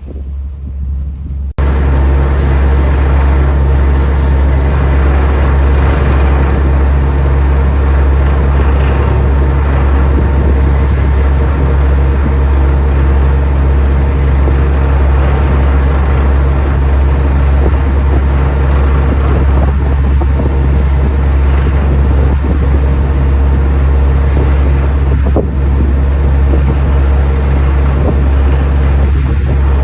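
Wind on the microphone, then an abrupt cut about a second and a half in to a large engine running with a loud, steady, deep hum that does not change.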